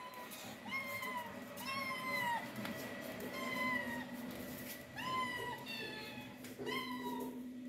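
Kittens meowing for food, about six short, high meows in a row as they follow a plate being carried to them.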